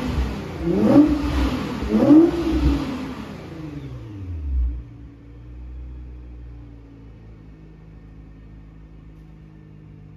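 2008 Nissan R35 GT-R's twin-turbo VR38DETT V6, fitted with straight pipes in place of the first catalytic converters and running the stock mufflers, blipped several times in quick succession. The revs then fall away, and about five seconds in it settles to a steady idle.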